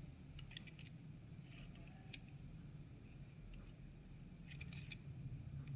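Faint scattered clicks and ticks of small objects being handled, over a low steady hum.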